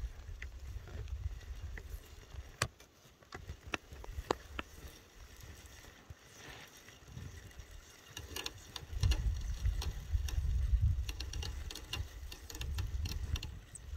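Wind buffeting the microphone in gusts, strongest at the start and again from about nine seconds in, with scattered sharp clicks and bursts of light ticking from a fishing reel being wound as a lure is retrieved.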